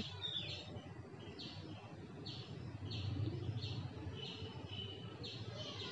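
Faint, short, high bird chirps repeated about once or twice a second.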